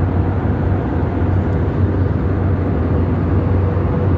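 Steady in-flight cabin noise of an Airbus A320neo airliner: an even rush of engine and airflow noise over a strong low hum, with a faint steady tone above it.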